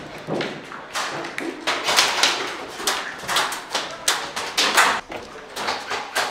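Airsoft guns firing: sharp clicking pops in quick, irregular clusters several times over a few seconds.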